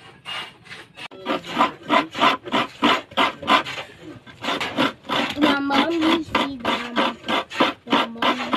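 Rhythmic hand scraping: rasping strokes about three a second, starting about a second in.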